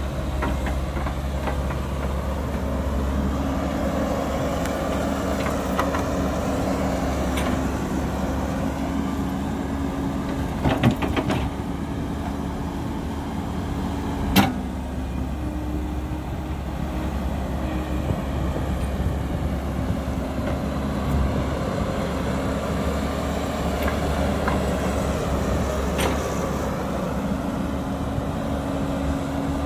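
Caterpillar hydraulic excavator's diesel engine running steadily as the machine digs soil, with a few sharp knocks, the loudest about fourteen seconds in.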